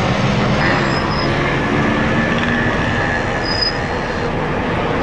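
Steady city street traffic noise, a dense even hiss of passing vehicles.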